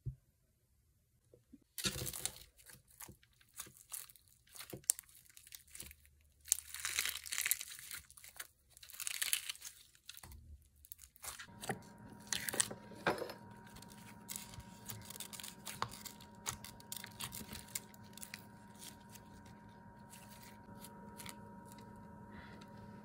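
Clear slime glue being poured and worked by hand, with dense crackling from about two seconds in. About eleven seconds in, the crackling gives way to lighter clicks and taps over a steady hum.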